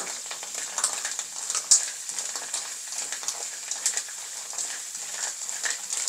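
Ốc hương (spotted babylon) sea snails being stir-fried in a hot pan: steady sizzling with frequent crackles and clicks as they are tossed and stirred, and one sharper knock about a second and a half in.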